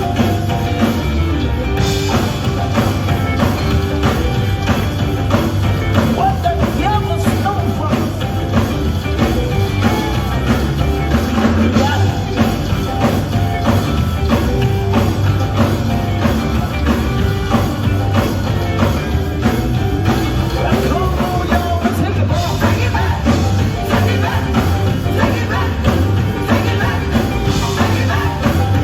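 Live band music with a drum kit and heavy bass, playing at a steady, loud level.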